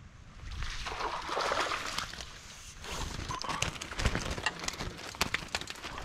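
Water splashing and sloshing for a couple of seconds as a spider lift net is hauled out of the creek, then a run of sharp crackles and taps as the net and its catch of crucian carp land on dry brushwood.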